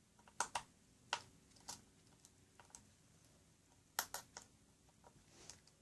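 Scattered light clicks and taps of a small Phillips screwdriver working the screws of a laptop screen bracket, with the plastic screen assembly being handled. The clicks come irregularly, a pair about half a second in and another pair about four seconds in.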